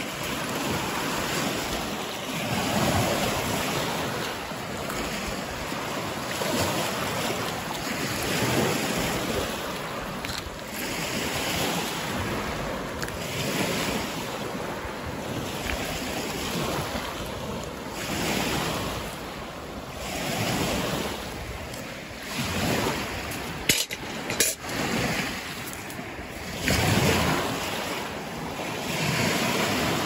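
Lake Michigan surf washing onto a sand-and-pebble shore, swelling and falling away every few seconds, with wind buffeting the microphone. A few sharp clicks come a little past the two-thirds mark.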